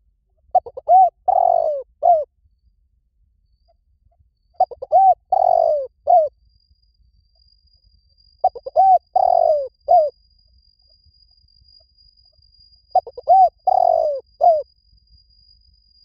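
Spotted dove cooing in the song style Thai dove keepers call "liw tan": four song phrases about four seconds apart, each a few quick short notes, a longer drawn-out coo and a short closing note.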